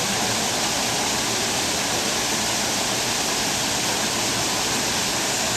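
Steady, even rush of flowing water, like a waterfall or a water feature in an animal exhibit.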